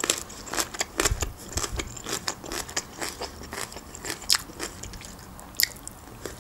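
Close-miked chewing of rotisserie chicken, with fingers pulling at the meat: a steady stream of irregular short clicks.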